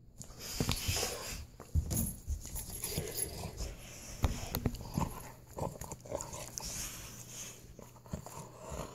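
A Dogue de Bordeaux plays tug-of-war with a rope toy, making dog play noises. Irregular knocks and rustles come as the toy is yanked and shaken, the sharpest about 2 and 4 seconds in.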